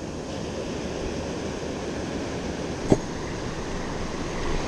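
Ocean surf washing and foaming in the shallows, a steady rushing noise, with one short click about three seconds in.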